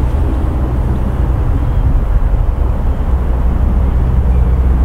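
Wind buffeting the microphone: a loud, steady low rumble with no distinct events in it.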